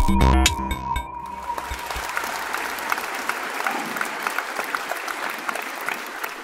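Electronic intro music ends about a second in, followed by audience applause that fades away near the end.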